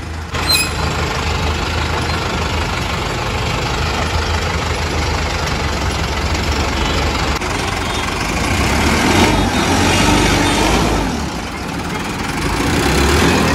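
Tractor's diesel engine running steadily while the tractor is driven, its loudness swelling twice. There is a sharp knock about half a second in.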